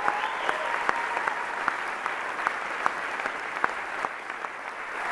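Theatre audience and cast applauding steadily, with sharp individual claps standing out.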